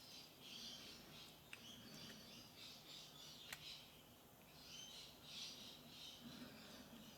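Near silence, with faint high bird chirping in the background and two faint small clicks, about a second and a half in and again near the middle.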